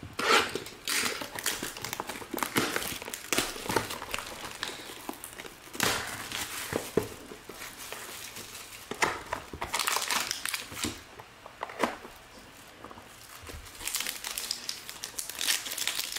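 Plastic wrapping being crinkled and torn in irregular bursts, with a few sharper snaps, as a sealed trading card box is opened.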